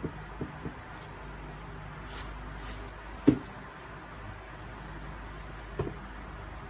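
A marker tapping and writing on a whiteboard, then a tissue rubbing across the board to wipe it. There is a sharp knock against the board a little after three seconds and a softer one near the end.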